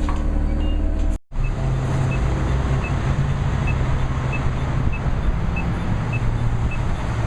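An engine running steadily with a low hum and rushing noise, cut off abruptly about a second in and resuming straight away.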